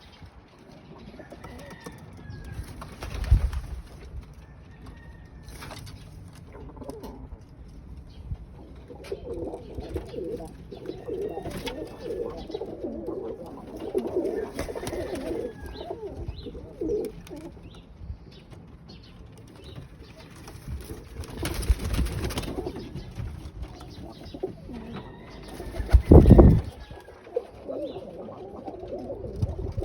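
Pet birds cooing in low, repeated calls, with a few faint thin higher calls and several dull bumps, the loudest near the end.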